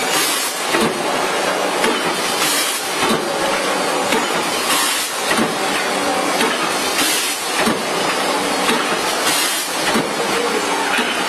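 Automatic rotary premade-pouch packing machine running: a steady mechanical clatter with bursts of compressed-air hiss about every two seconds as its pneumatic cylinders cycle.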